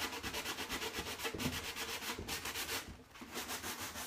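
Hand sanding with a medium-grit sand pad, rubbing over the edges of a painted wooden door to distress the fresh paint. The strokes are quick, even and back-and-forth, with a short pause about three seconds in.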